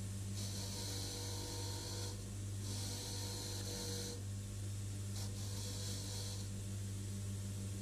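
Mac Afric bench grinder's motor running with a steady hum while a steel workpiece is pressed against its spinning wheel in spells, giving a hissing scrub three times, each a second or two long, as rust is cleaned off.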